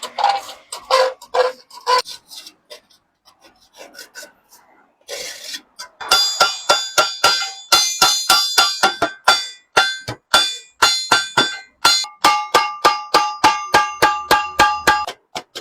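Sheet-metal water kettle being struck repeatedly, several sharp blows a second, each ringing with a metallic tone; the ringing pitch changes at about twelve seconds as the blows move to another spot. Before the hammering starts, about six seconds in, there is a scraping and rubbing on the metal.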